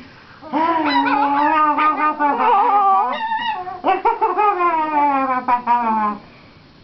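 Cavalier King Charles spaniel puppy 'talking': two long howling vocalisations with a short break between them, the second slowly falling in pitch.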